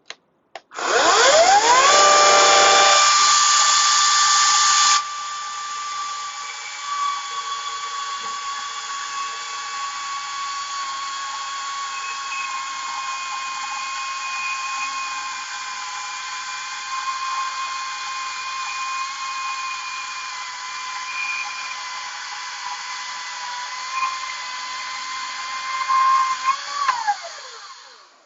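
Ryobi 14-inch electric chainsaw spinning up with a rising whine, then running at a steady high whine while cutting through a live oak limb. Near the end it winds down with a falling whine.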